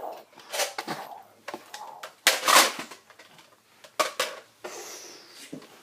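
Handling noise from a plastic Nerf disc blaster: a string of short clicks and clatters about a second apart, the loudest about two and a half seconds in.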